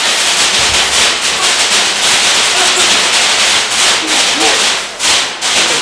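A string of firecrackers going off: a loud, dense, rapid crackle that runs on without a break.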